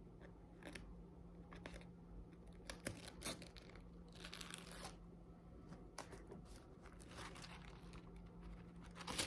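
Faint rustling, crinkling and tearing of packaging, with scattered small clicks and taps as it is handled and a longer tearing rustle about four seconds in.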